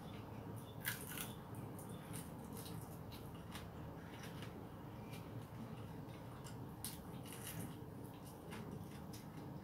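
Faint eating sounds: chewing and mouth clicks, with scattered small crackles and taps as food is picked from a takeout container.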